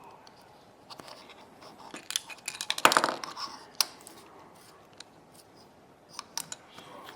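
Sharp clicks and scraping of small tools and parts being handled on a work surface. The clicks bunch together with a rustling scrape from about two to three and a half seconds in, and a few more clicks come near the end.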